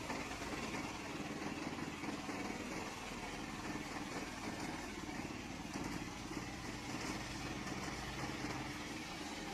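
Gasoline engine of a remote-controlled slope mower running steadily.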